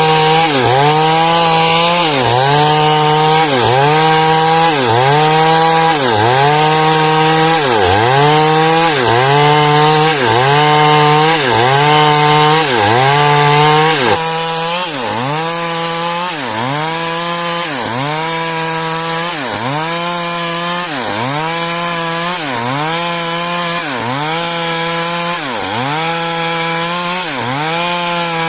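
Chainsaw sawing through a hardwood log lengthwise. The engine note dips and recovers about once a second in a steady rhythm as the chain loads in the cut. It becomes somewhat quieter about halfway through.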